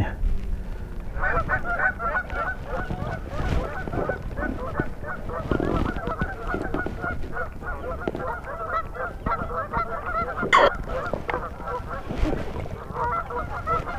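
A flock of geese honking over and over, many calls overlapping, with a low wind rumble on the microphone.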